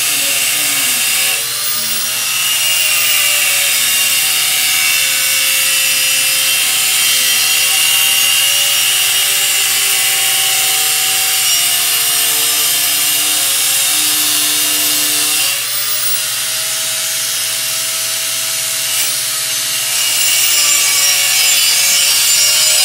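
Corded angle grinder spinning at speed and grinding metal, a steady motor whine under a loud, high-pitched rasp. The grinding eases for a few seconds just past the middle, the motor pitch dipping briefly, then bites in again near the end.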